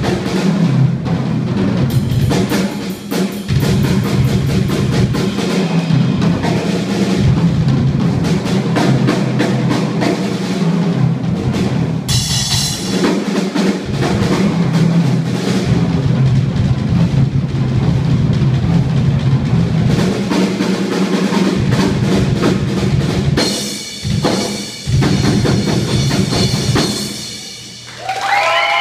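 Drumline-style percussion performance: marching tenor drums and snare drums with a drum kit, playing fast beats and rolls, with two brief breaks near the end. The audience starts cheering just as it finishes.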